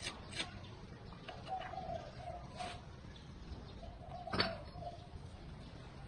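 A bird's low, repeated call sounds several times in the background, under short sharp knocks from the bricklaying work with bricks and a mortar bucket; the loudest knock comes a little over four seconds in.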